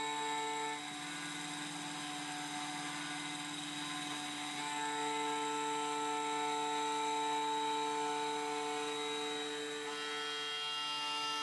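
CNC mill's end mill cutting aluminium plate: a steady, many-toned machining whine. Its middle tones drop away about a second in and come back a few seconds later.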